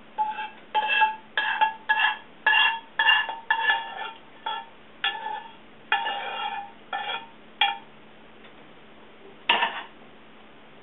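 Metal spoon scraping and knocking tomato sauce out of a frying pan: about a dozen short strokes, each making the pan ring. Near the end comes a single louder clank as the pan is set down on the stove.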